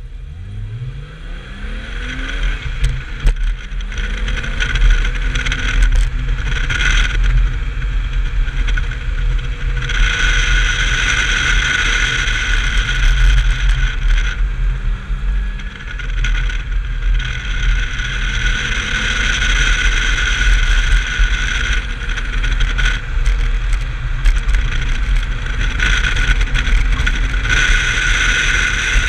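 BMW E30 325i's 2.5-litre straight-six engine revving up hard from low revs, then running at high revs under load with repeated dips and pulls. A high-pitched whine rises and fades over it in long stretches.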